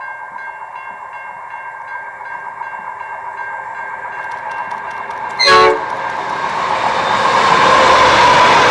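A steady pulsing ringing tone, then a train horn sounds one short blast about five and a half seconds in, and the train approaches, its rumble building up to a loud steady rush.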